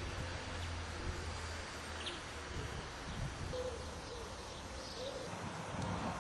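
Outdoor ambience: a steady low hum and hiss, with a few faint short chirps.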